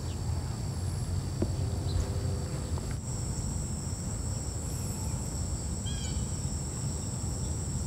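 Steady high-pitched chorus of insects buzzing, over a constant low rumble. A short run of bird chirps comes about six seconds in.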